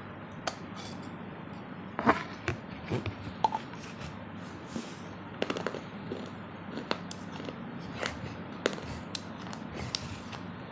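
Teeth biting and crunching pieces off a baked clay pot (matki): irregular sharp cracks and crunches, the loudest about two seconds in and again about a second later.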